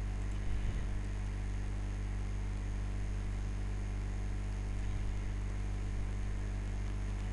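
Steady electrical mains hum with a faint hiss, the background noise that lies under the whole recording.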